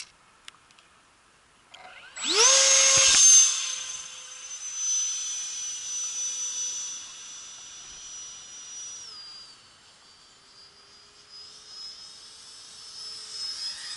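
Radio-controlled Super Scorpion electric ducted-fan jet spooling up sharply to a loud high whine about two seconds in. The steady whine then fades as it flies off and drops in pitch about nine seconds in.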